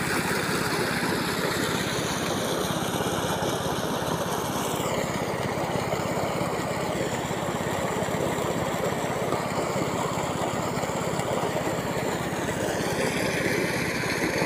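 Diesel engine running steadily at a constant speed.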